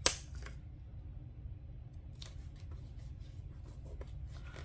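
Light clicks and taps of a paper sticker being set and pressed down onto a planner page with fingertips and fingernails, with one sharp click right at the start. A low steady hum runs underneath.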